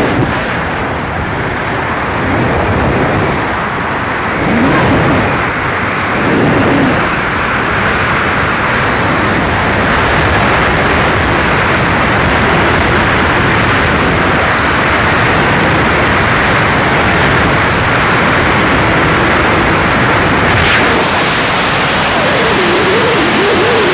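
Loud, steady rush of freefall wind over the camera microphone during a tandem skydive; about twenty-one seconds in the hiss turns brighter and harsher.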